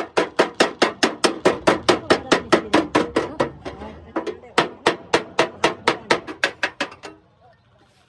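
Rapid, evenly paced hammer blows on metal, about five a second. They weaken for about a second in the middle, then pick up again and stop about seven seconds in.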